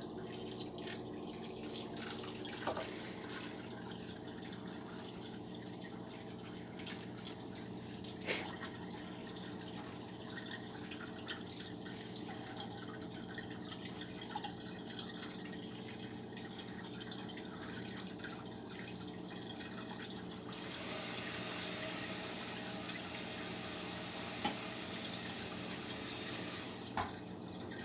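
Sweet wort dripping and trickling through a strainer as mashed grains are sparged, with a few light knocks of utensils over a steady low hum. The trickle grows a little louder about twenty seconds in.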